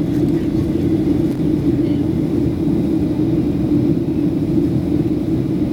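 Boeing 737-700 cabin noise on approach: the steady low rumble of the engines and rushing air, with a constant hum.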